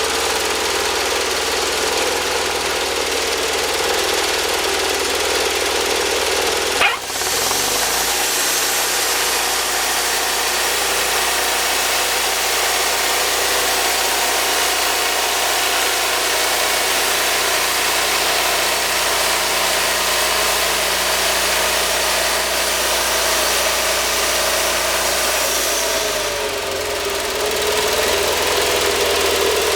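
Woodmizer portable sawmill's engine running steadily. A sharp click comes about seven seconds in, where the engine's note shifts, and the note shifts again around 26 seconds in.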